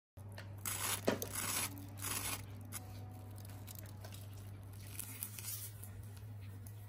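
Crisp breadcrumb-coated fried bread roll crackling and crunching as it is squeezed and torn open by hand: three bursts of crust crackle in the first couple of seconds, then softer crackles about five seconds in, over a steady low hum.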